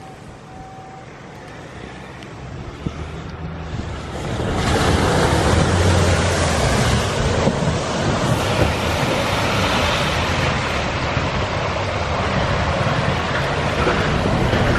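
A 4x4 ute's engine running as it comes up to the bog hole. From about four and a half seconds in, loud continuous splashing and churning as its tyres plough through deep muddy water, with the engine still running under the splashing.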